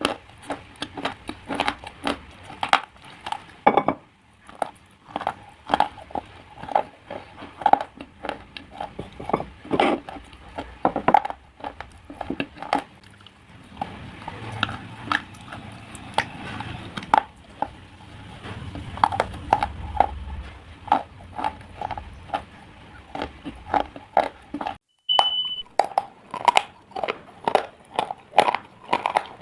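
Hard, brittle slate pieces being bitten and crunched close to the microphone, with sharp crisp cracks coming several a second, followed by chewing.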